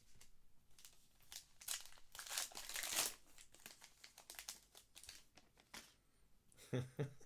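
A baseball card pack wrapper being torn open and crinkled by hand, in a series of rustling bursts that are loudest about two to three seconds in.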